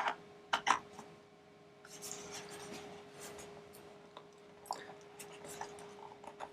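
Faint handling sounds of hard drives and a plastic drive docking station: a few light clicks and knocks, and a soft scraping slide about two seconds in, over a faint steady hum.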